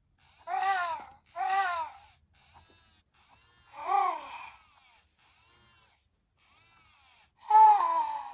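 Cubbles the Bear, a Little Live Pets Cozy Dozys plush toy, playing baby-like cooing and whimpering cries from its speaker. It gives four louder short calls that rise and fall in pitch, with fainter ones between.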